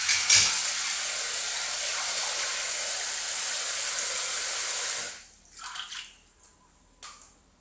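Running water pouring steadily, cut off abruptly about five seconds in, followed by a few light splashes and a short knock.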